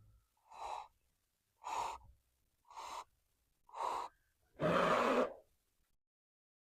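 Five puffs of breath about a second apart, the last one longer and louder: someone blowing into a sheet of slime to inflate it into a bubble.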